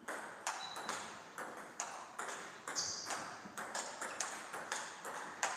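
Celluloid/plastic table tennis ball being hit by rubber-faced paddles and bouncing on the table during play: a quick, uneven series of sharp clicks, several a second, with a couple of brief high squeaks among them.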